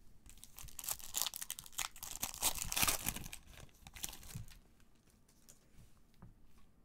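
A foil trading-card pack wrapper of 2015 Upper Deck Marvel Vibranium crinkling and tearing as it is ripped open, loudest about halfway through. A few soft clicks follow near the end.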